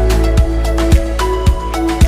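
Background music with a steady beat: an electronic track with mallet-like melodic notes over a kick drum about twice a second.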